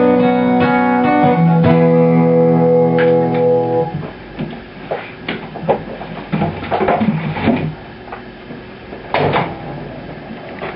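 A guitar chord strummed and left ringing for about four seconds before it stops, closing a sung comic song. Fainter, scattered sounds follow.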